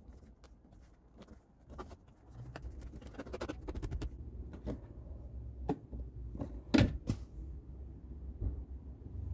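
Plastic dashboard trim of a BMW F30 clicking and knocking as it is handled and pressed into place, with a run of small clicks and one louder knock about two-thirds of the way through.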